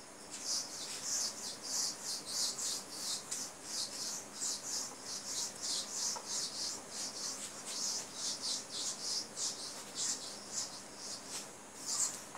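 Eraser wiping marker writing off a whiteboard in quick back-and-forth strokes, about three a second, a dry rubbing and scratching.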